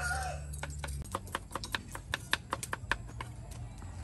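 Kitchen knife chopping rapidly on a wooden cutting board, a quick run of sharp knocks that thins out near the end. A rooster's crow trails off at the very start.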